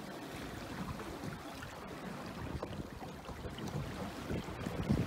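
Choppy lake water splashing and lapping against the hull of a small sailing dinghy, with gusty wind. A louder slap near the end.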